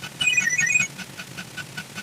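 Electronic alarm-style jingle: a quick run of high beeping notes lasting about half a second, repeating every two seconds over a steady ticking of about four beats a second.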